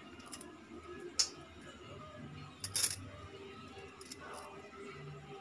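Quiet kitchen handling while filling samosas with grated cheese: a single sharp click about a second in and a quick double click near three seconds, from kitchenware being handled, over a faint steady hum.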